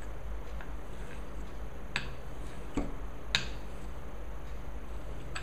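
Pizza-cutter wheel knocking and clicking against a rolling board while slicing rolled dough into strips: three sharp clicks, about two seconds in and twice more within the next second and a half, the last the loudest, over a steady low hum.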